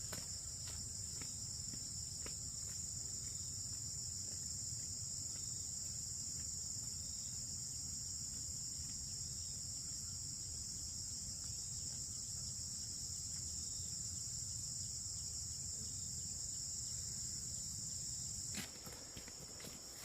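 Steady high-pitched insect chorus with a low rumble underneath and a few faint clicks near the start. The rumble drops away suddenly near the end while the insects carry on.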